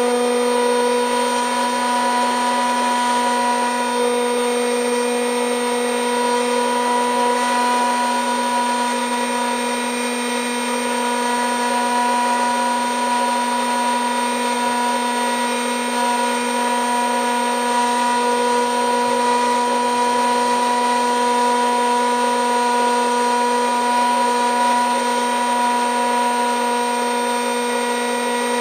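Electric motor and propeller of a small radio-controlled aircraft, heard close up from its onboard camera: a steady high whine at constant throttle.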